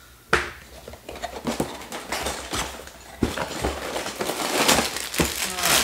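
A cardboard Lego box being opened by hand: a sharp pop of the box flap about a third of a second in, then rustling and scraping of cardboard and plastic parts bags as the contents are tipped out, loudest near the end.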